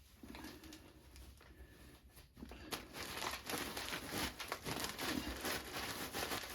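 Rustling and crinkling of material being handled, starting about two and a half seconds in after a quiet start.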